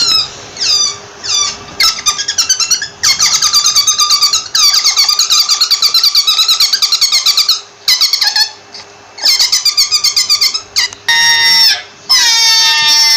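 A rabbit squeaking: short, high-pitched squeaks that drop in pitch, coming in quick rapid-fire runs with brief pauses. Near the end they give way to longer, falling cries.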